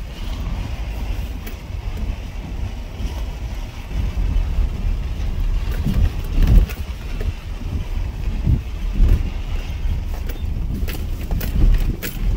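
Wind buffeting the microphone: a heavy, uneven low rumble that swells in gusts, with a few light clicks near the end.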